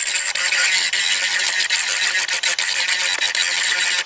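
Dremel rotary tool running at high speed, its bit grinding metal from inside a ball-joint housing, with a steady high-pitched whine that cuts off abruptly at the end. The material is being removed so a tight aftermarket ball joint can start into the housing straight.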